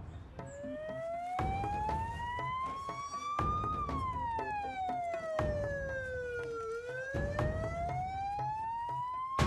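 A siren wailing slowly up and down: it climbs for about three seconds, falls for about three, then climbs again. Low thumps come about every two seconds beneath it.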